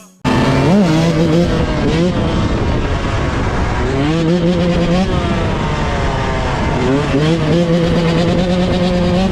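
A motor vehicle engine revving, briefly at first, then brought up and held at steady revs twice, about four seconds in and again about seven seconds in. It starts suddenly after a short silence.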